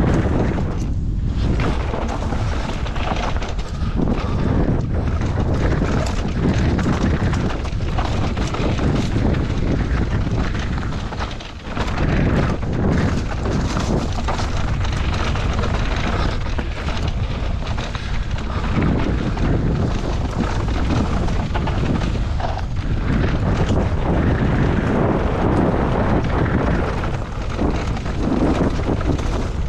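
Wind rushing over the microphone of a mountain biker's action camera at speed, mixed with tyre noise and rattling from the bike on a dry dirt trail. The steady rush drops briefly about eleven and a half seconds in.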